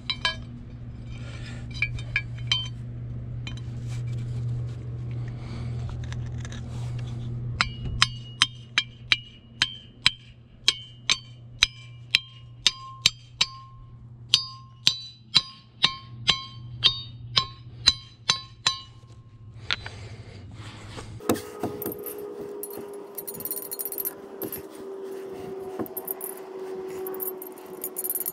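A hammer striking metal in steady blows, about two a second, each with a short ringing clink, over a steady low hum. The hum stops about twenty seconds in, and a hissing sound with a slowly falling tone takes over.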